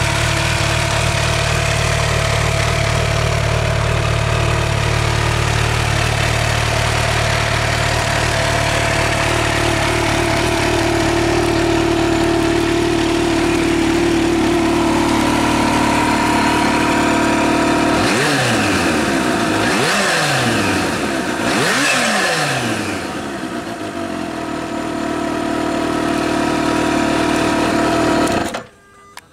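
Kawasaki H2 SX SE's supercharged inline-four idling through its stock exhaust, blipped three times in quick succession about two-thirds of the way in, each rev rising and falling back to idle. Near the end the engine is switched off and cuts out suddenly.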